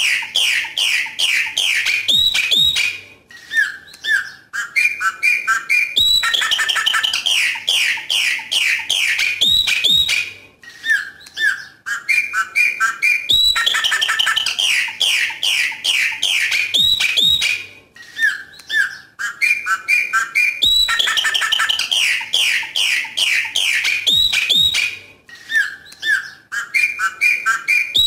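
Chopi blackbird singing its 'coqui coqui' song: a loud run of quick whistled notes followed by softer, lower down-slurred phrases. The same song phrase comes round about every seven seconds, four times over.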